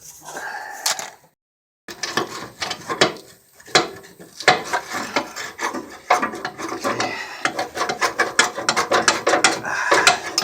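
A hand ratchet wrench clicking in quick runs as a suspension bolt is turned, with an abrupt break about a second and a half in.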